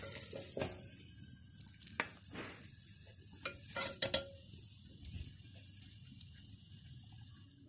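A slotted steel spoon scraping through thick carrot halwa in a metal pot and tapping against the pot and plate while it is dished out, with a few sharp clinks around two and four seconds in, over a steady faint hiss.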